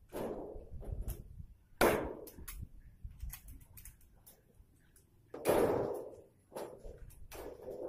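Galvalume gutter sheet being riveted with a hand pop-rivet gun: four sharp metallic cracks, each ringing briefly through the sheet metal, with light clicks of the tool between them.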